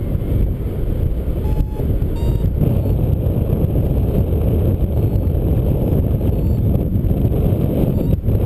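Wind rushing over the microphone of a paraglider in flight, a steady low buffeting. About two seconds in come two short electronic beeps, the second a little higher, like a paragliding variometer signalling lift.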